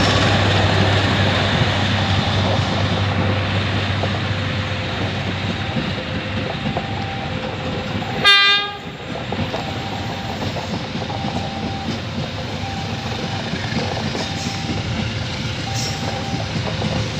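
A train running on the rails with a steady low diesel locomotive hum, and one short horn blast about eight seconds in.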